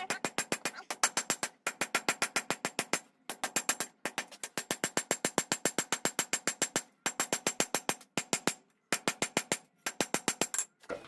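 Hammer blows on hot steel on an anvil, about six quick ringing strikes a second in runs of a second or two with short pauses between: the steel tip of a knife preform being forged to one side.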